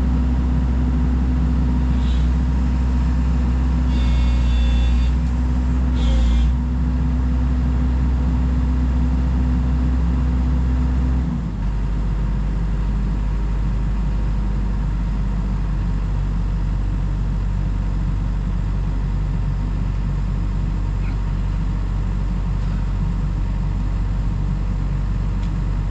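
Sany SY135C excavator's diesel engine running steadily under hydraulic work, with brief high-pitched whines around four and six seconds in. About eleven seconds in the engine drops to a lower, quieter idle.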